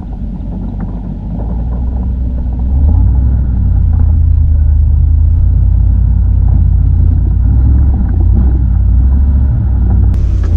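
Toyota LandCruiser 100 series V8 engine pulling the four-wheel drive up a rutted dirt hill: a deep, steady rumble that grows louder about three seconds in and then holds.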